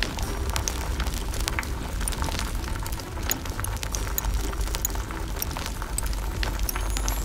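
Irregular crackling sizzle with many small scattered pops, over soft background music.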